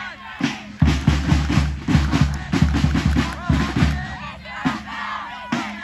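Drums beating a fast, even rhythm of about five strokes a second from about a second in until about four seconds in, with crowd voices shouting and cheering over it.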